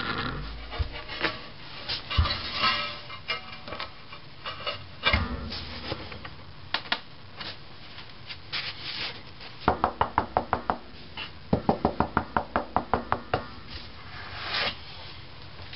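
A ceramic floor tile being set into fresh thinset mortar and tapped gently by hand to bed it: scattered knocks and scrapes, then two quick runs of light taps, about seven a second, about ten seconds in and again a second later.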